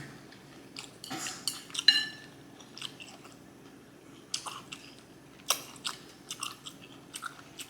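Close-miked chewing and lip-smacking on a mouthful of takeout food: irregular wet smacks and clicks, with a couple of louder smacks about two and five and a half seconds in.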